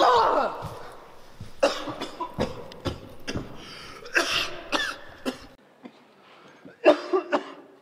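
A man coughing in short, irregular fits, winded and in pain after being kicked in the stomach.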